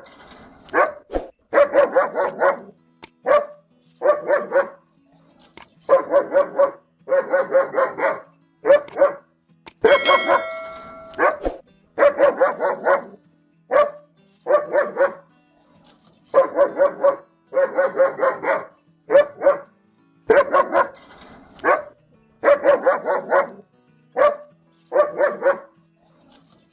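German shepherd barking aggressively in rapid runs of several deep barks, one run every second or two, with a brief ringing tone about ten seconds in.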